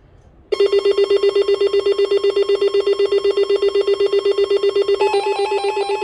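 Emergency alert attention tone starting abruptly about half a second in: a loud electronic tone pulsing rapidly like a ringing phone, with a second, higher tone joining about five seconds in.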